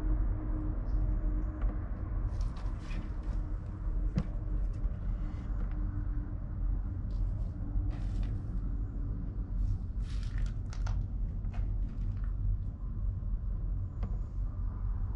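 Steady low rumble with scattered light clicks and rustles, from someone moving about and handling the camera in a cramped wooden space.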